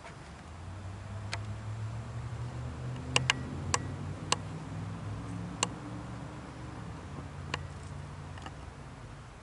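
About eight sharp clicks at irregular intervals, over a low hum that swells from about a second in and fades near the end.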